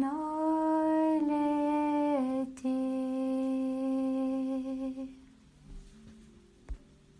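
A woman's voice singing long wordless held notes, stepping down in pitch. The last note is held for about two and a half seconds and fades out about five seconds in.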